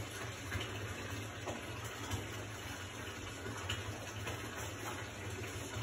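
Steady rush of running water, a bathtub filling from its tap, with a few faint ticks.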